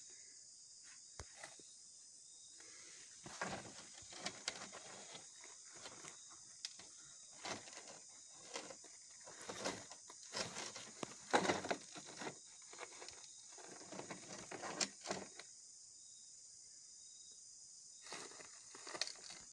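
Faint, irregular rustles and knocks of work in a gravel-bedded trench as PVC drain pipe is laid and fitted, over a steady high hiss.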